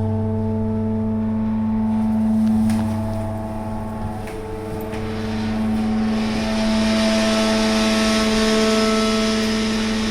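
Phoenix platform lift's drive running as the platform travels up: a steady hum made of several fixed tones, with a hiss building in about halfway through. It sounds knackered, the sign of a run-down lift.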